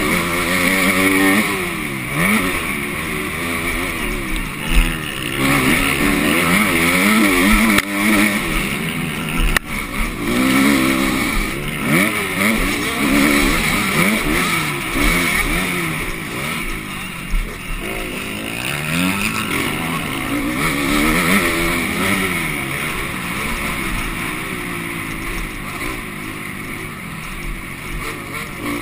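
MX2 motocross bike engine heard from on board, revving hard and falling back again and again as the rider accelerates, shifts and backs off through the track, with steady wind rush on the microphone. A few sharp knocks cut through.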